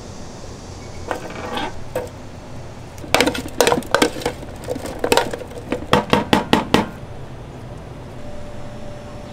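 Kitchenware clattering: a quick run of sharp metal and dish clinks and knocks in the middle stretch, then it settles.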